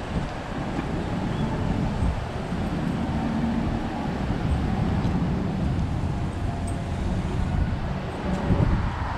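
Steady low rumble of outdoor background noise, with faint voices mixed in.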